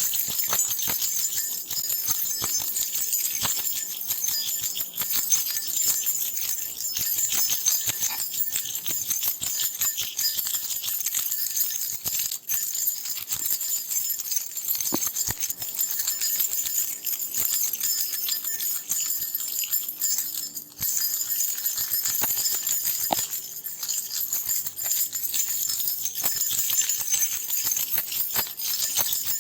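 A bunch of metal keys being shaken and jangled continuously, a dense bright jingle of many small clinks, with two brief pauses about 12 and 20 seconds in.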